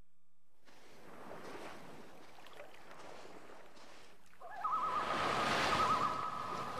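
City street noise, then about four and a half seconds in a police car siren starts a fast warbling yelp. A rush of traffic noise swells with it.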